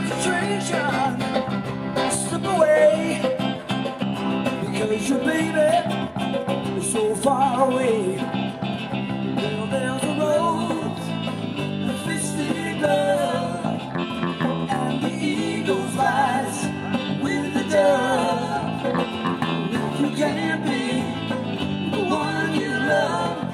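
Live band playing a song through a PA: acoustic and electric guitars, bass guitar and drums, with a lead vocal.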